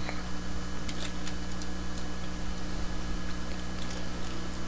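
Steady low electrical hum on the recording, with a few faint clicks scattered through it.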